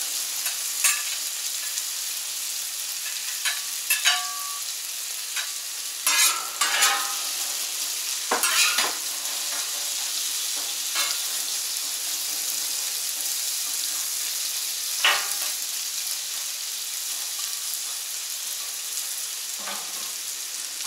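Diced russet potatoes sizzling in bacon fat, oil and butter on the hot steel plate of a Camp Chef FTG600 flat-top griddle, a steady frying hiss. Now and then a metal utensil clicks and scrapes on the griddle as the potatoes are pushed about.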